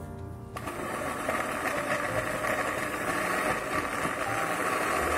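Electric blender motor running steadily, grinding raw chicken with egg and seasonings into a smooth paste. It starts about half a second in, after a few soft background-music notes.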